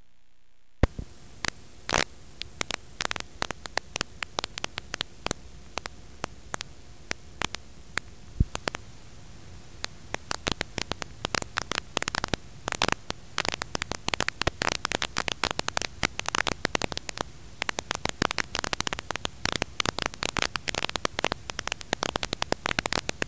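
Static hiss with crackling clicks, starting about a second in. The clicks grow dense and rapid about ten seconds in. This is noise from a blank stretch of analog videotape.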